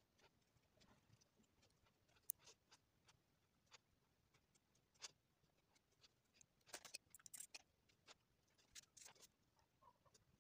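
Near silence broken by faint, scattered taps and scratches of a paintbrush dabbing paint onto sketchbook paper, in small clusters with quiet gaps between.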